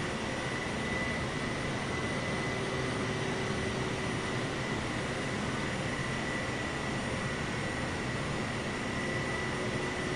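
Jet airliner engines running steadily: an even rush with a thin, steady high whine above it.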